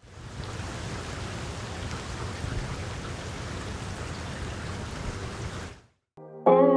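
Steady rain falling, cutting off suddenly about six seconds in; after a moment of silence, guitar music starts near the end.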